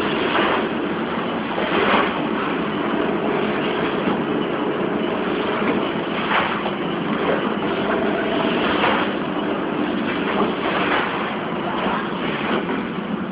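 Animal-feed bag-packing line running: a steady mechanical hum and clatter with a few short knocks scattered through it.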